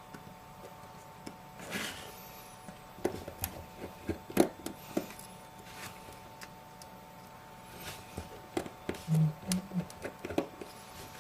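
Small tools clicking and tapping on a phone's metal parts while tiny screws are taken out, in scattered light ticks, with a faint steady hum underneath.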